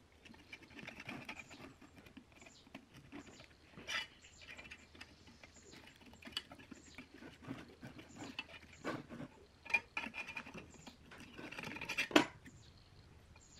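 Knife blade scraping and prying at the old glued paper cone and rusty steel frame of a speaker woofer as the cone is cut free, making irregular scratchy scrapes and small clicks, with a sharp crack near the end.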